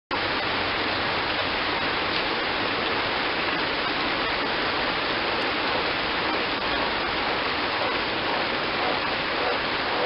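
Heavy rain pouring steadily onto garden leaves and gravel, an even, unbroken hiss of countless drops.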